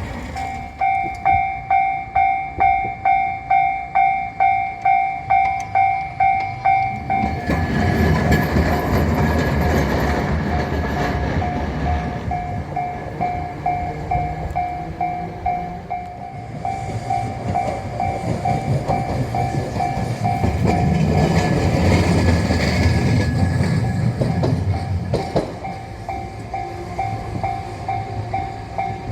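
A Japanese level-crossing alarm bell rings steadily at about two strikes a second while two old Kagoshima City trams, cars 601 and 603 (built 1959), rumble past one after the other. The first passes from about seven seconds in; the second passes louder from about seventeen seconds in.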